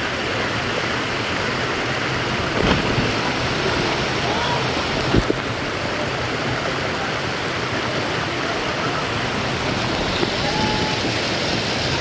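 Small waterfall pouring into a pool: a steady rush of falling water, with a couple of brief knocks about three and five seconds in.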